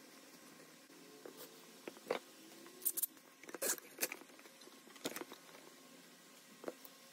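Steel bar clamps being slid into place and tightened around a glued wooden scoop: about half a dozen sharp clicks and knocks of the clamp jaws and bars against the wood, most of them in the middle of the stretch.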